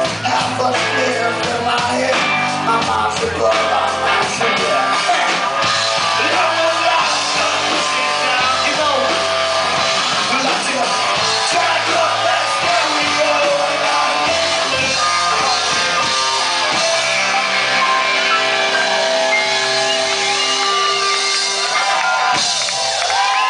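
Live reggae-punk band playing a song loud, with electric guitar, bass and drums and a voice singing.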